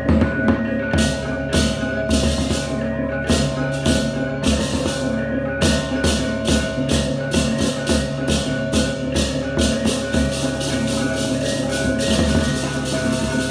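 Balinese baleganjur gamelan playing: gongs ringing steadily under repeated clashes of cengceng cymbals, which come faster from about six seconds in.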